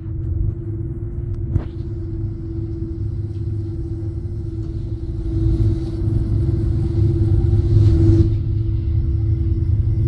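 Herzogstandbahn cable car travelling along its cable: a steady low rumble with a constant hum, swelling louder about eight seconds in.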